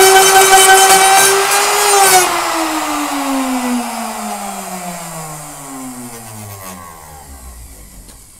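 A hand power tool's motor running at full speed, switched off about two seconds in, its pitch falling steadily as it coasts down and fades away over the next six seconds.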